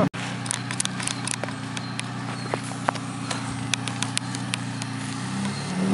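UAZ off-road vehicle's engine running steadily at low revs, with many sharp clicks and knocks scattered over it; the engine picks up a little near the end.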